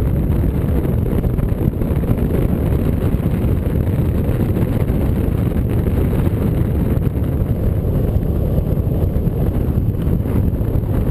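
Wind rushing over the microphone of a camera mounted on a hang glider in flight: a steady, deep rumble of airflow noise.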